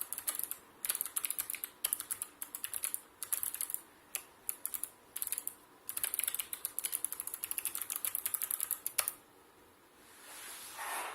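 Fast typing on a Sharkoon PureWriter low-profile mechanical keyboard with clicky Kailh Blue switches: rapid runs of sharp key clicks with brief pauses between bursts. The typing stops about nine seconds in, and a faint swishing noise follows near the end.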